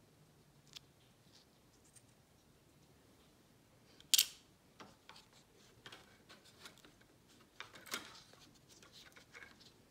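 Small clicks and clacks of a clip-on camera lens filter and its storage case being handled: one sharp clack about four seconds in, then a run of lighter clicks and taps with another clack around eight seconds.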